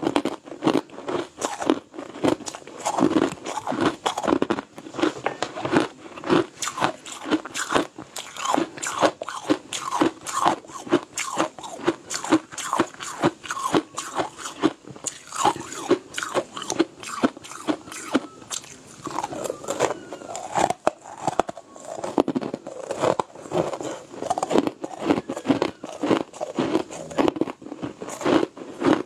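Close-miked crunching and chewing of fluffy, snow-like ice, a rapid unbroken run of crisp crunches, several a second.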